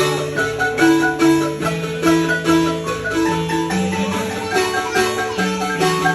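Marimba music: mallets striking the bars in a lively melody over a steady bass line, with a regular beat.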